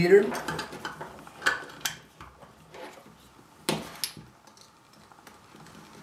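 Cable connectors clicking and clattering as cable ends are handled and plugged into a test setup. The sound is a few separate sharp knocks, the loudest about a second and a half in and near four seconds in.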